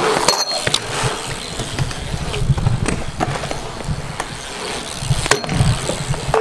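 Wheels rolling over a concrete skatepark surface, with a steady rolling noise, a rumble and scattered clicks and knocks, the heaviest knock about five seconds in.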